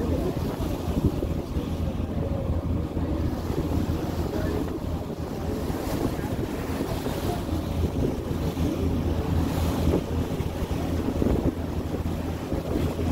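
Passenger ferry under way: its engine hums steadily and low while water rushes along the hull and wind buffets the microphone.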